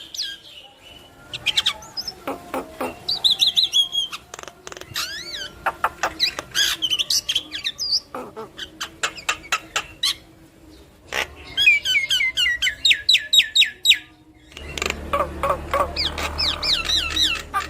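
Javan myna singing energetically: a varied jumble of sweeping whistles, chirps and fast clicking rattles, with a quick string of rising notes about twelve seconds in. A steady low hum comes in beneath the song about fourteen and a half seconds in.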